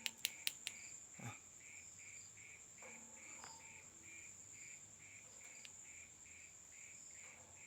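Yellow-vented bulbul pecking at a hand, a quick run of about four sharp beak clicks in the first second, the 'pak pak pak' that marks a bold bird. Crickets chirp steadily underneath.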